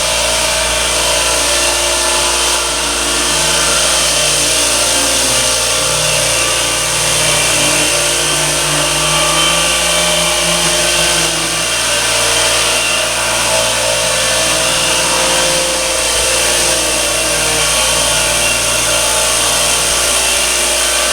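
Clarke commercial random orbital floor sander running steadily: a loud, even motor hum with the hiss of the sanding pad working the floor.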